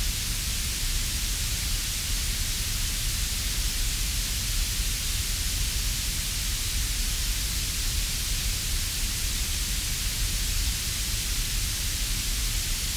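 Steady, even hiss with a low rumble underneath, unchanging throughout: noise from a cheap action camera's microphone, with no motor whine or impacts standing out.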